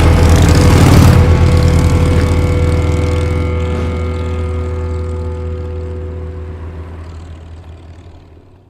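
Closing rock music ending on a long held chord that slowly fades away to silence.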